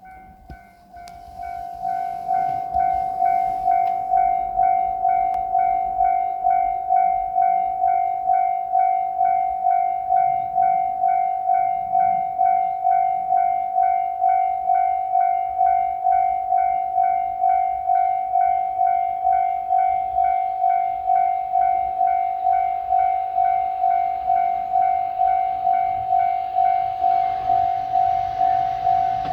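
Japanese electronic railroad-crossing bell ringing its steady 'kan-kan' warning, evenly repeated strokes at about one and a half a second, starting about a second in. Near the end the rumble of an approaching train begins to build beneath it.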